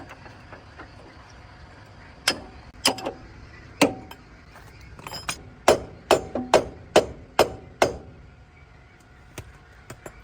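Hammer blows on a metal part, about nine sharp ringing strikes. The first few come about a second apart, then a quicker run at about two a second.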